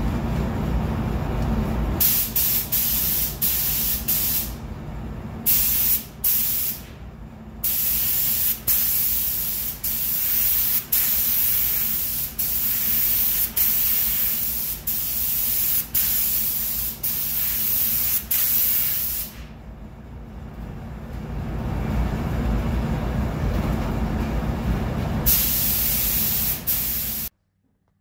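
Gravity-feed paint spray gun spraying red paint in bursts of hiss as the trigger is pulled and released again and again, with one longer pause about two-thirds of the way through. A steady low rumble runs underneath, and all sound cuts off suddenly near the end.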